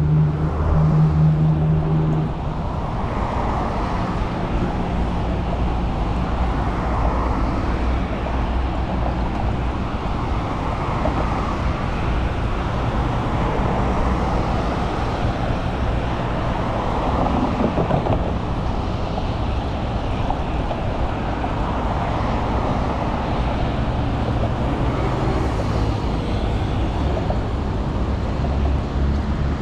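Steady city road traffic: engines and tyres of passing cars and buses. A nearby engine hums steadily for the first two seconds and comes back near the end.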